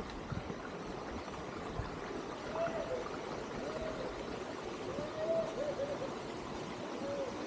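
Steady rush of water from garden fountains and pools. Several short calls that rise and fall sound over it between about two and a half and seven seconds in.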